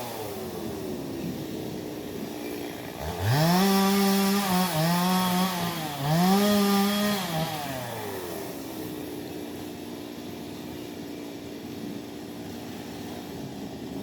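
Stihl two-stroke chainsaw idling, then throttled up about three seconds in and held at high speed cutting into a large teak log, its pitch dipping briefly twice under load. It drops back to a steady idle for the second half.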